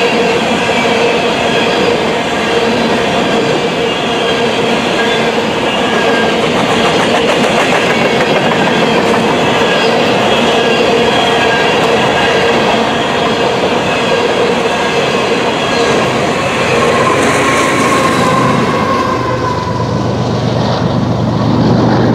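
Freight train of steel coal hopper cars rolling past, wheels clattering over the rail joints with steady squealing tones. The sound fades in its upper part late on, and a deeper low rumble comes in near the end.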